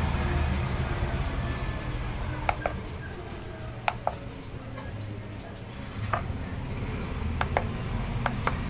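Short, sharp plastic clicks from a digital kitchen scale's push buttons being pressed and the plug adapter being handled on its plastic platform: about nine clicks, mostly in quick pairs. A low steady background rumble runs underneath.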